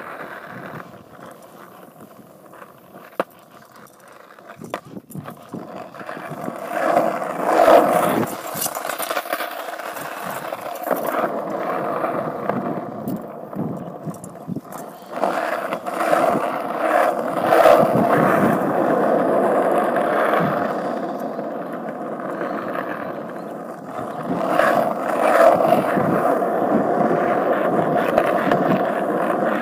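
Skateboard wheels rolling over coarse asphalt, a steady grinding noise that is quieter for the first few seconds and then swells louder three times as the board picks up speed.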